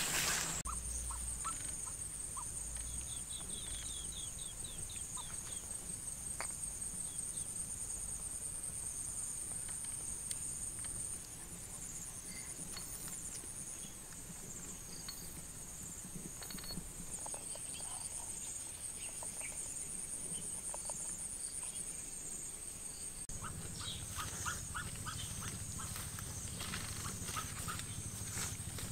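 Steady high-pitched buzzing of insects, with a short run of chirps about three seconds in. Scattered clicks and rustles come in the last few seconds.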